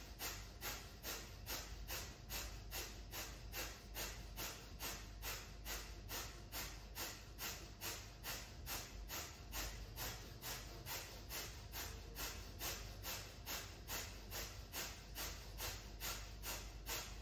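Breath of fire: a steady train of quick, forceful breaths through the nose, about three a second.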